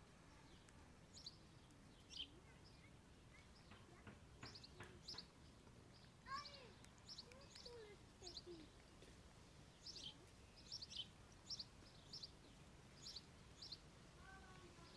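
Faint outdoor birdsong: many short, high chirps repeated throughout, with a few lower gliding notes in the middle, over a faint steady background hiss.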